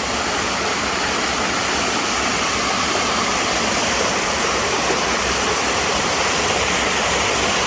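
A little waterfall and its stream of running water, a steady, even rush of falling water.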